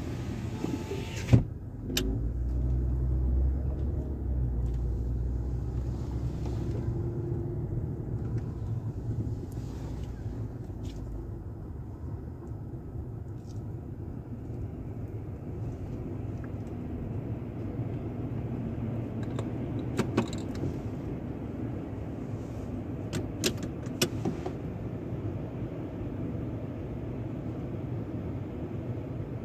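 Inside a car: a power window closing, ending in a sharp thump about a second and a half in. The engine then pulls the car slowly forward with a low rumble that settles into a steady idle, with a few sharp clicks later on.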